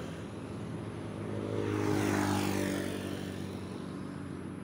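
An engine passing by, swelling to its loudest about two seconds in and then fading.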